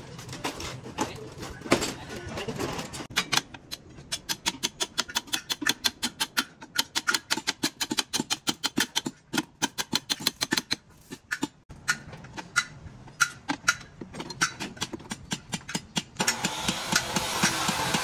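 Hammer knocking on beam formwork and rebar: a quick run of light blows, about five a second, that thins out to scattered knocks, followed near the end by a steady rushing, scraping noise.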